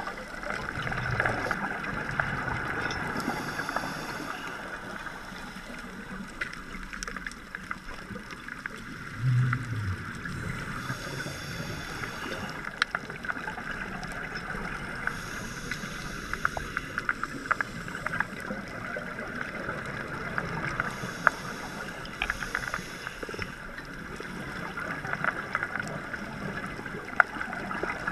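Underwater sound through a dive camera's housing: a steady muffled wash with many scattered sharp clicks. A scuba regulator's breathing hiss and bubbles swell every five seconds or so, with a short low bubbling rumble about nine seconds in.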